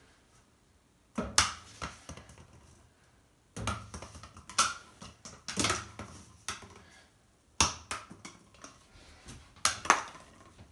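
Empty cardboard toilet paper rolls thrown at a small plastic wastebasket, landing and bouncing on the floor and against the bin: sharp knocks and clatters in five or six bunches a second or two apart.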